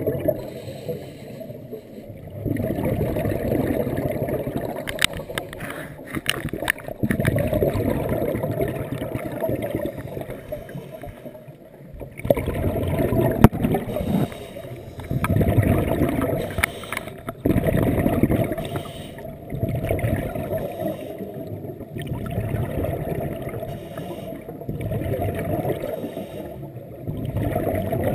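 Scuba diver's exhaled bubbles rumbling and gurgling from the regulator underwater, in repeated bursts of two to three seconds with quieter inhalations between. A few sharp clicks; the loudest comes about halfway through.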